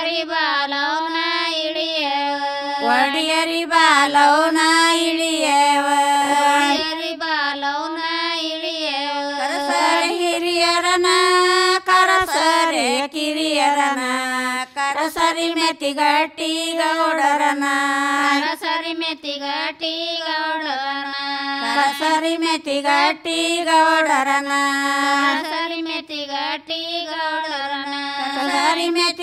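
Women singing a traditional Kannada shobhana pada folk song together, unaccompanied, in high voices with long held and sliding notes.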